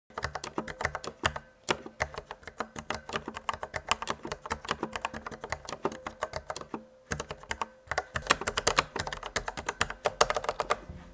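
Fast typing on a Corsair K60 RGB Pro mechanical keyboard with linear Cherry Viola switches: a dense stream of key clacks, with brief pauses about a second and a half in and just before seven seconds.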